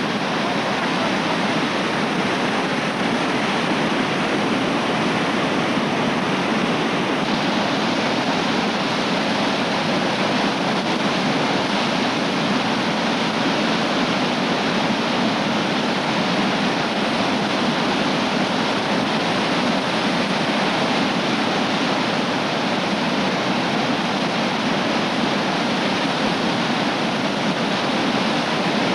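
Steady, loud rush of a river rapid: whitewater churning and crashing over the rocks.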